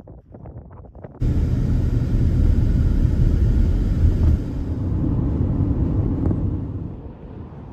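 Wind and road noise of a moving car: a loud, steady low rumble that starts abruptly about a second in and eases near the end.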